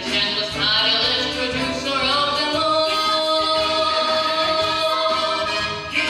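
A boy singing a Broadway show tune over instrumental accompaniment, holding one long note from about two and a half seconds in until just before the end.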